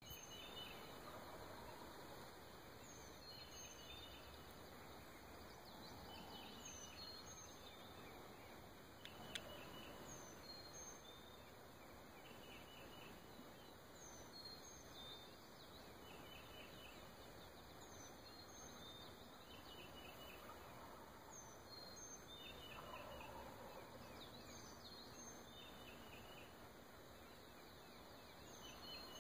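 Several wild turkey toms gobbling faintly and repeatedly from their roost, one answering another, before fly-down. A songbird's short high calls repeat every couple of seconds throughout.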